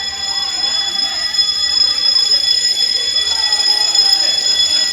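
School fire alarm sounding loudly and without a break: a steady, shrill, high-pitched tone.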